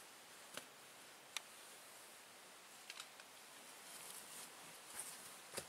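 Near silence, with a few faint, scattered clicks and ticks.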